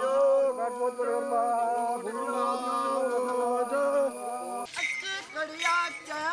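Men's voices singing a chant together in long held notes. Near the end the sound cuts abruptly to a different stretch of voices with a few sharp clicks.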